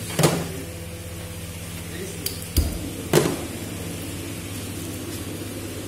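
Metal cookware clanking in a kitchen: a few sharp knocks and one dull thump, spaced out over a few seconds, above a steady low hum.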